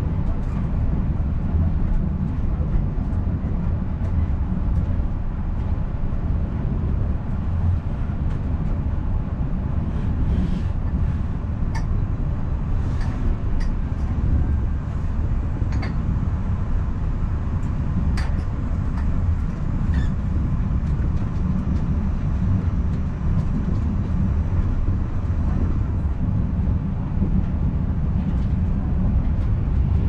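Passenger train running along the track, heard from inside the coach as a steady low rumble, with a few short squeaks in the middle stretch.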